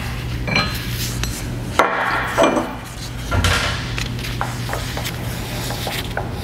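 Clinks, knocks and scrapes of steel parts being handled on a rock-drill accumulator fixture, as the removal tool's nuts and hold-down ring come off and are set down on a steel bench. The clatter is densest around two seconds in, and a steady low workshop hum runs beneath it.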